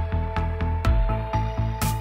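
Background music with a steady beat: bass notes about four a second under a held high tone, with a bright cymbal-like swell near the end.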